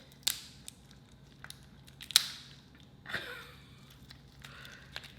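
Lobster tail shell cracking and crunching as it is broken open: three sharp cracks, the loudest about two seconds in, with smaller clicks and rustling between.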